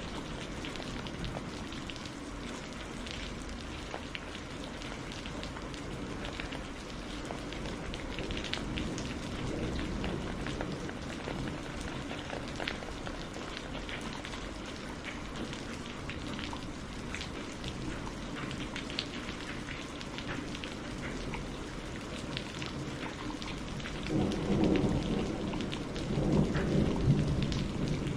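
Steady rain falling, with the patter of individual drops on a surface. Near the end a roll of thunder rumbles in, swelling twice.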